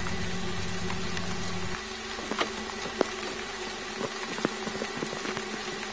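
Steady rain falling, a constant hiss with scattered drops ticking and a few sharper drips. A low hum underneath cuts off about two seconds in.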